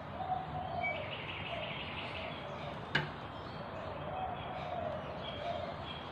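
Birds chirping and calling in the background, with a single sharp click about three seconds in.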